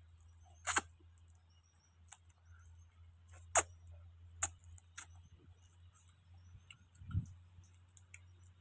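Scattered sharp clicks over a steady low hum: four louder clicks within the first five seconds, then a dull low thump near the end.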